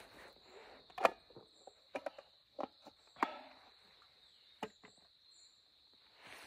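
Steady high-pitched chirring of insects such as crickets, under a few sharp clicks and knocks from a metal drinking cup and clothing being handled; the loudest knock comes about a second in and a duller clunk just after three seconds.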